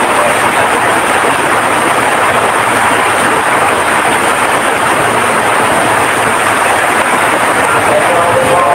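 Heavy rain pouring steadily as a loud, even hiss. Near the end a voice begins.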